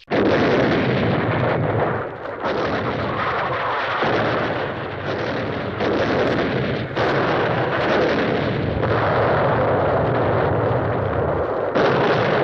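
Hanna-Barbera cartoon explosion sound effects, a rapid series of booms and blasts, each new one starting a second or two after the last with no gap between them.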